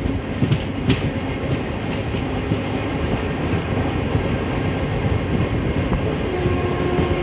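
Indian passenger train running, heard from aboard the coach: a steady rumble of wheels on rail with a few sharp clacks over the rail joints. A faint steady whine comes in near the end.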